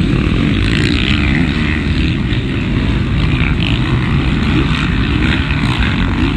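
Motocross dirt bike engines revving and running together as a pack races, a dense, wavering engine noise that stays loud throughout.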